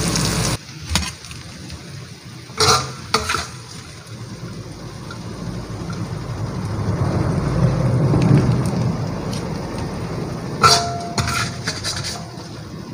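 Food sizzling in a stainless steel wok that cuts off about half a second in, followed by scattered sharp clinks of metal utensils and dishes, a few near the start and a cluster with a short ring near the end. A low rumbling noise swells up in the middle and fades.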